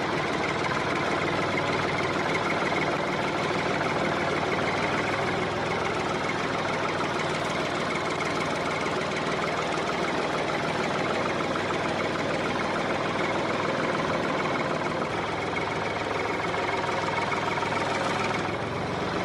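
A small motor running steadily with a fast, even rattle, easing slightly near the end.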